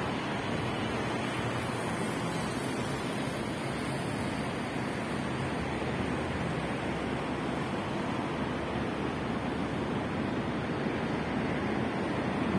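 Steady rushing noise of road traffic, mixed with wind on the microphone, growing slightly louder near the end.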